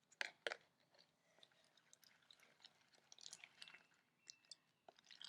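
Faint sticky, wet clicks and squelches of glue slime being stirred in a cup as body wash is worked in and the mixture starts to clump. There are two sharper clicks near the start.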